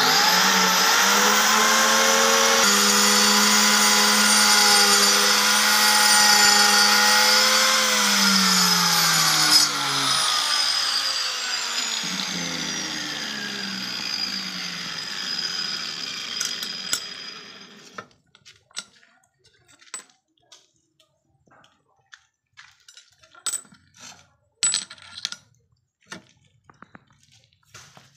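Handheld electric marble cutter with a groove diamond blade, switched on and running at a steady whine for about eight seconds while cutting a groove into a granite step slab, then switched off: its pitch falls as the blade winds down and fades out over several seconds. Afterwards a few light knocks and clicks of stone and tools being handled.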